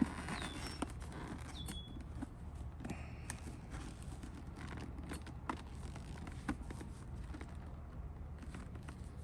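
Scattered light clicks and taps from hands handling a motorcycle helmet and headset parts, irregularly spaced, over a low steady hum.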